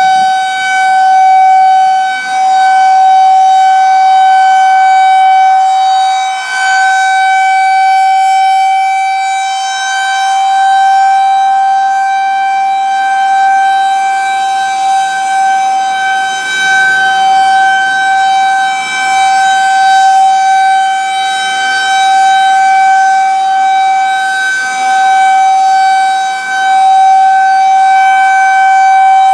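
Federal Signal 2001-130 electromechanical outdoor warning siren sounding its steady Alert tone. The pitch holds level throughout, while the loudness swells and fades every few seconds as the rotating horn sweeps round.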